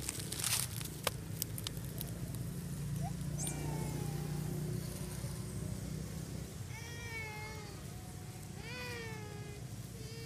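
Infant long-tailed macaque crying: high, wavering, meow-like calls, two loud ones in the second half and another at the end, after a few clicks of movement in dry leaves at the start.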